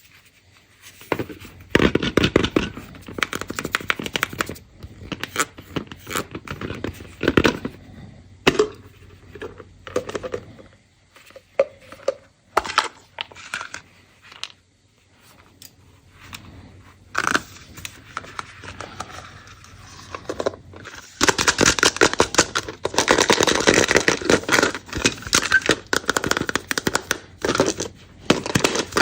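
Candy wrappers being unwrapped by hand: crinkling, crackling and tearing of foil and plastic packaging. It comes in bursts with quieter gaps, busiest about two seconds in and again over the last third.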